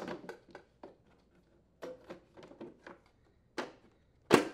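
Black plastic transmission shroud of a Honda lawn mower being handled and fitted back onto the mower deck, giving a run of light clicks and knocks. A single sharper knock comes near the end.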